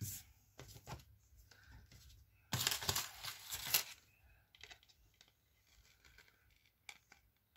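Jewellery packaging being torn open by hand: a burst of tearing and crinkling lasting about a second and a half, a few seconds in, with a few light handling clicks around it.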